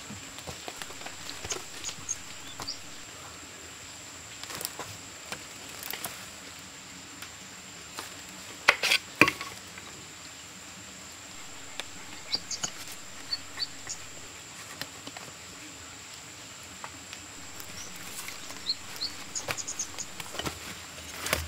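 Steady high insect buzz of the forest, with dry leaf litter and twigs rustling and crackling as a person crouches, reaches for and picks a mushroom from the forest floor; the loudest crackles come a little before the middle. A few short high chirps sound in the second half, and steps crunch in the litter near the end.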